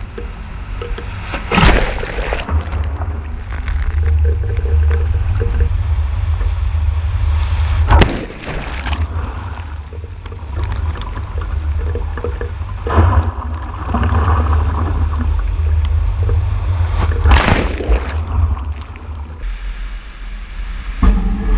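Typhoon-driven storm waves breaking heavily against a rocky coast, with four big crashes a few seconds apart. Under them runs a constant deep rumble of wind buffeting the microphone.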